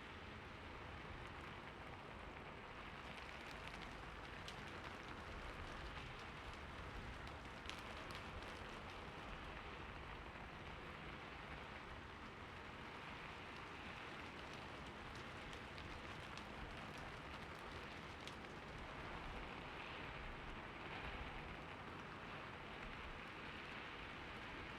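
Steady light rain falling, an even hiss with scattered drop ticks.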